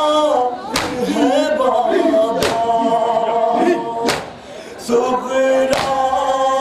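Shia nauha (Muharram lament) sung by a male reciter through a microphone, with a group of men chanting along. The crowd beats its chests in unison (matam), a sharp slap about every second and a half.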